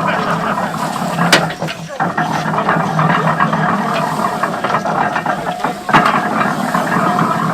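1910 Burrell steam traction engine driving a 1936 Case hay baler: steady mechanical running and clatter, with a sharp knock about a second in and another near the end.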